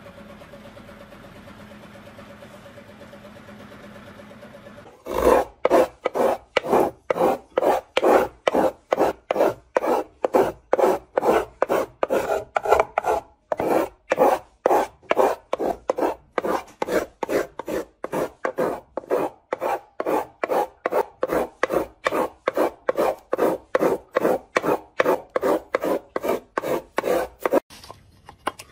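Rhythmic back-and-forth rasping of a hand tool worked over a wood surface, about two to three strokes a second, with a brief pause partway through. It is preceded by a few seconds of a quieter steady machine hum.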